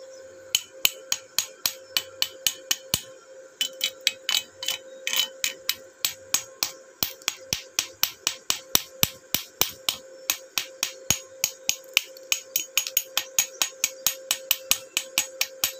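Chipping hammer and steel wire brush knocking slag off fresh stick-weld beads on a steel plate: a long run of sharp metallic strikes, about three a second.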